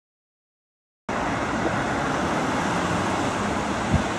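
Silent for about a second, then a steady outdoor background noise, an even hiss and rumble, with one brief low thump near the end.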